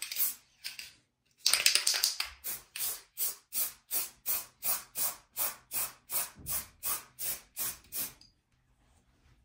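Aerosol spray-paint can hissing in short, quick bursts, about three a second, as the nozzle is pressed and released over and over during a coat of paint. The spraying stops near the end.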